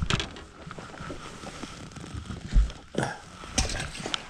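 Handling noises on a fiberglass bass boat's deck: rustling, a low thump about halfway through and a few sharp knocks near the end, around the open livewell hatch.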